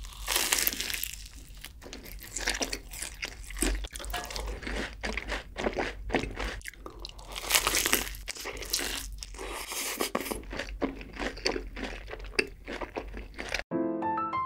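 Close-miked crunching and chewing of crispy Bburinkle fried chicken, with loud, irregular bites of the crust. Near the end the crunching cuts off abruptly and piano music begins.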